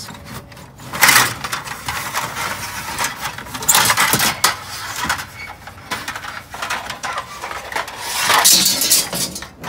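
Long metal car trim pieces clattering and scraping against each other and rustling a torn cardboard box as they are pulled out of it, in several loud bursts: about a second in, around four seconds and near the end.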